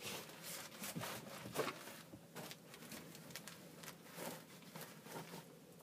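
Faint, irregular rustling and scuffing of a person moving around and handling things, in short scrapes and swishes.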